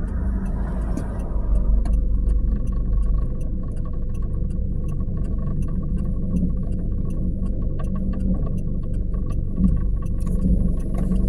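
Car interior: low steady engine and road rumble as the car creeps forward in slow traffic, with a faint steady whine and a regular light ticking over it.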